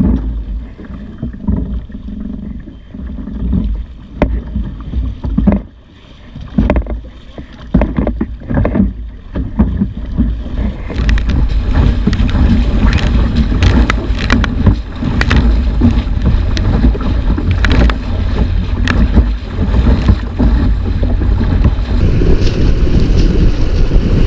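Strong wind rushing over the microphone, with water splashing and knocking against the hull, as a kayak strapped to the side of a moving boat is carried through choppy water. About eleven seconds in, the rush turns louder and steadier.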